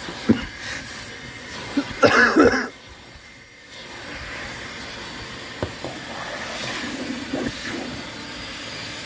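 Shop vac running as its hose nozzle is worked over car floor carpet, a steady suction hiss with a few knocks of the nozzle. A louder burst comes about two seconds in, then the suction sound drops for about a second before returning.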